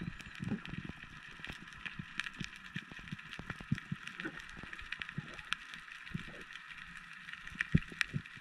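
Underwater ambience picked up through a gun-mounted camera housing during a breath-hold dive: dense, scattered clicks and crackles over a steady hiss, with irregular low thumps throughout.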